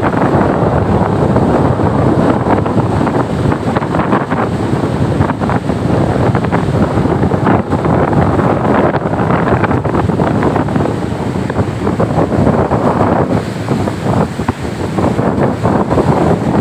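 Strong wind blowing hard against the microphone over heavy surf breaking on the shore, a loud, continuous rushing noise.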